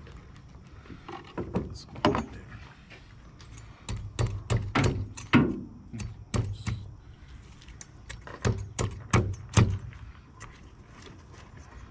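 Machete chopping into an alligator gar's hard, armoured skin and scales against the cutting board. Repeated sharp, thudding chops, about one or two a second, come thickest from about four seconds in.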